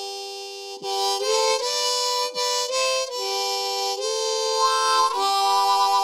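Harmonica playing a slow tune of held notes, often two sounding together as a chord, with a quick warbling trill near the end.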